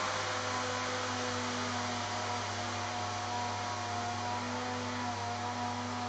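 Steady electrical hum with a hiss over it, holding several fixed pitches without change.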